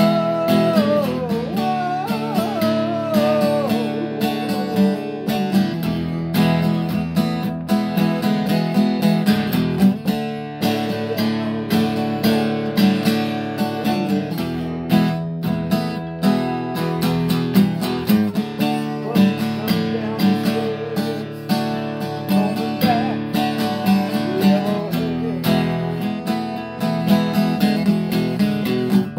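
Acoustic guitar strummed in a steady rhythm, ringing chords played continuously.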